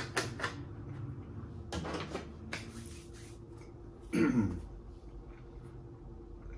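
A plastic gallon jug crinkling and knocking as it is handled and set down on a glass table. About four seconds in comes a short, louder vocal sound from the eater that falls in pitch, like a burp or throat noise.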